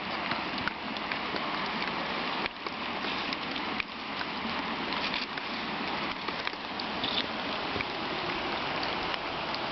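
Steady rushing of a creek's flowing water, with a few faint clicks or rustles.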